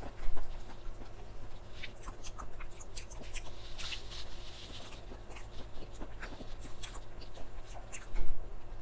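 Scattered small clicks, taps and scrapes of close handling, with a louder knock just after the start and another near the end, over a steady low hum.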